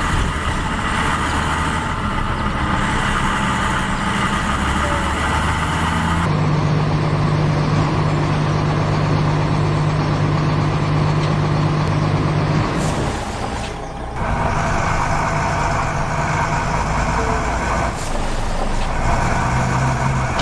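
Heavy truck engine running steadily. Its low note changes about six seconds in, and the sound dips briefly about two-thirds of the way through.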